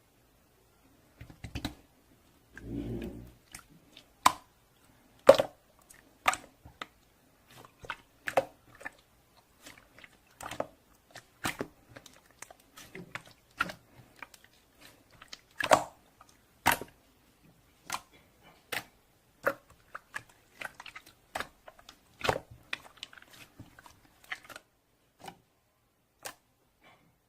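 Clear slime being squished and pressed by hand, giving sharp wet clicks and pops at an irregular pace, about one or two a second, with a short dull thud about three seconds in.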